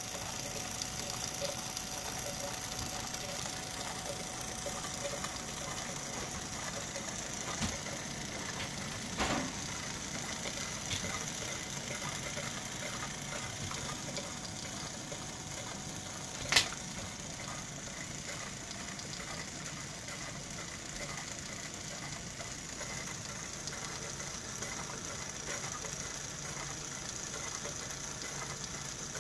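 Converted rock tumbler running quietly: a small electric motor turns two rubber barrels on rods through vacuum-cleaner belts and plywood pulleys, with an even mechanical hum and a light repeating clatter. A couple of soft thumps come about a third of the way in, and a sharp click just past halfway.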